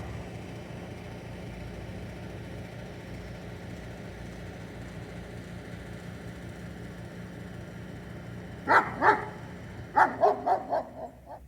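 Dog barking: two sharp barks about nine seconds in, then a quick run of several barks near the end, over a steady low hum.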